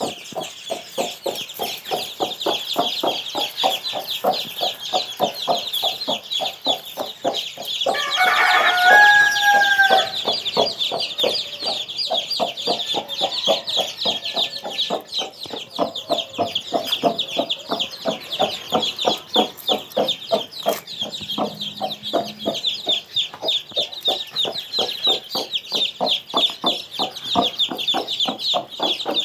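A brood of chicks peeping continuously and high-pitched, while a mother hen clucks steadily and low to them. About eight seconds in, a louder drawn-out call lasting about two seconds rises over them.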